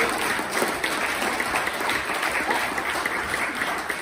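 A roomful of people applauding: dense, steady clapping that thins slightly toward the end.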